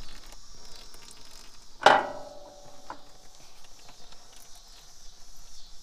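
A single sharp knock of a hard object, with a brief ringing tail, about two seconds in, then a fainter click a second later, over a steady high-pitched hiss.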